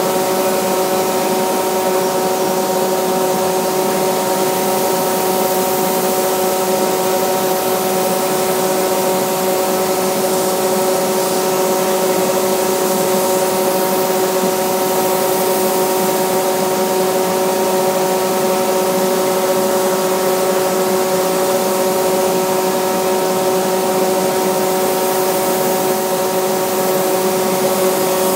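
Steady hiss of a compressed-air paint spray gun spraying finish onto a guitar body, over a constant machine hum of several steady tones.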